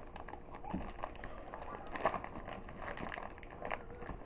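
Faint crinkling and scattered small clicks of a Happy Meal toy's packaging being pulled and worked at, a package that is hard to open.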